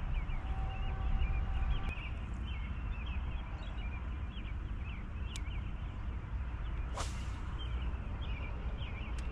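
Outdoor chorus of many short, high chirps from small animals, repeating irregularly over a steady low rumble. A brief swish cuts through about seven seconds in.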